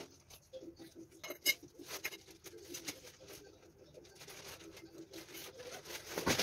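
Faint gritty pattering and ticking of coloured rangoli powder rubbed between the fingertips and sprinkled onto the surface, with a louder clatter at the very end.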